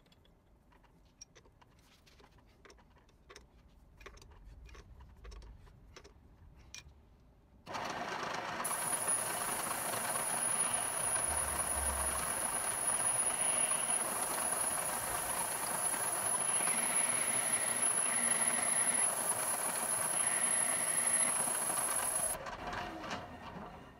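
Light clicks as a carbide-tipped hole saw is fitted in a milling machine's drill chuck. About eight seconds in, a steady hiss of the Mini Cool air-mist coolant and the mill running start suddenly, with a high whine. The saw cuts into thick steel in short pecks that come and go, and the sound drops away near the end.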